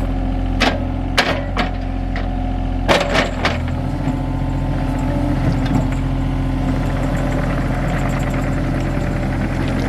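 John Deere 35G mini excavator's diesel engine running steadily while the machine pushes dirt. There are several sharp metallic clanks in the first three and a half seconds.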